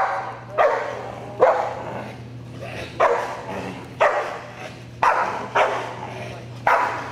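A German Shepherd protection dog barking at an agitator, about seven loud, sharp barks roughly a second apart, each trailing off in echo.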